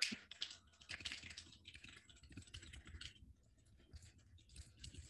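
Faint typing on a computer keyboard: a run of irregular keystrokes, with a short lull a little past the middle.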